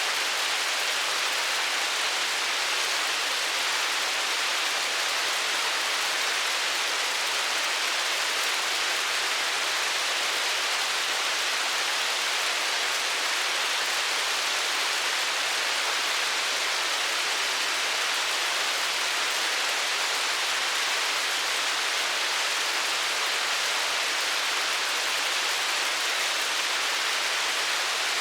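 Hailstorm: hail falling steadily in a dense, even patter, with no single hits standing out and no let-up.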